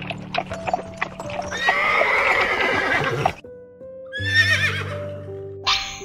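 Horse whinnying over soft background music with sustained notes: a long neigh about a second and a half in that cuts off sharply, then a shorter call about a second later. A few sharp clicks come in the first second.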